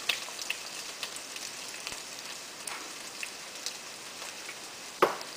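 Sliced carrots sizzling in hot oil in a stainless steel frying pan: a steady frying hiss with scattered crackling pops, one louder pop near the end.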